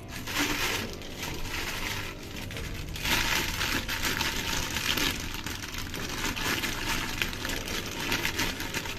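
Plastic toy packaging crinkling and crackling as it is handled and opened, louder from about three seconds in.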